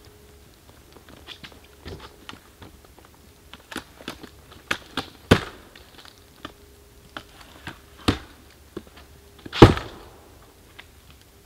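Scattered clicks, knocks and rustles of a rooftop tent and its gear being handled and packed up, with two louder thumps about five and ten seconds in, over a faint steady hum.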